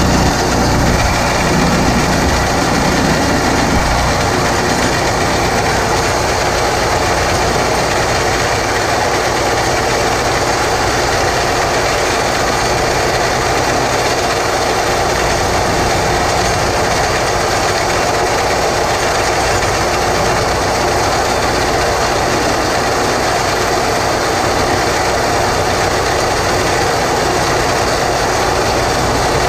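Horizontal boring rig running steadily, turning a drill rod that pulls a 4 3/8-inch back reamer through a 10-inch concrete block, the reamer grinding through the concrete. The sound is a little heavier in the first few seconds, then holds even.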